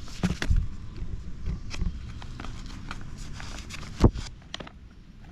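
Paper service manuals and booklets being handled and shuffled: rustling with scattered knocks and taps, and one loud thump about four seconds in as something is set down or dropped.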